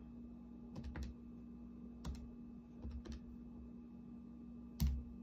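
A few faint, scattered clicks and taps, about six in all, the loudest near the end, over a steady low hum.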